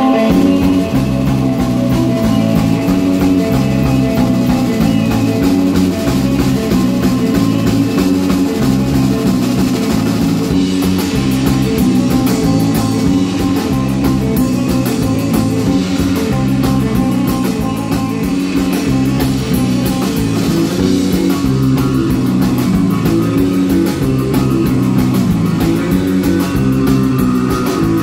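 Live instrumental surf rock band playing: electric guitar, electric bass and drum kit together, loud and steady.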